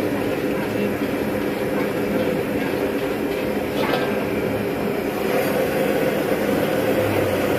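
Gas wok burner running steadily under a wet wok, with a brief clank or scrape about four seconds in.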